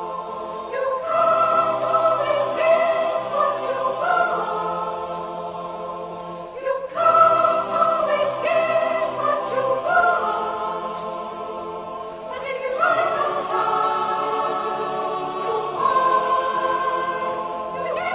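A choir singing in long, slow, sustained phrases, with a few short pauses between them.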